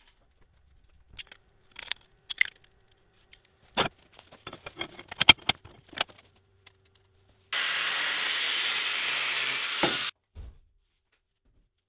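Steel flat bar being handled and clamped in a bench vise: a run of metal clanks and knocks, the loudest and sharpest about five seconds in. Then an angle grinder cuts into the steel, a loud steady grinding noise for about two and a half seconds that stops abruptly.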